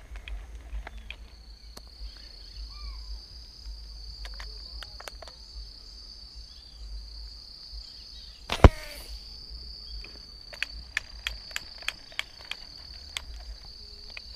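A slingshot fires a fishing arrow about halfway through: one loud, sharp snap of the released rubber bands. Insects keep up a steady high-pitched drone throughout, and a quick run of sharp clicks follows a couple of seconds after the shot.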